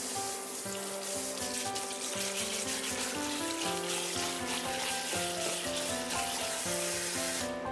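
Kitchen tap running into a stainless steel bowl in a sink while small smelt are swirled by hand to rinse off their slime. The water stops near the end. Gentle background music plays throughout.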